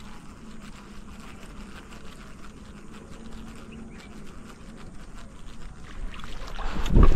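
An insect buzzing at a steady low pitch close to the microphone over faint open-air ambience with scattered light ticks. About six seconds in, a loud low rumble builds on the microphone and peaks near the end.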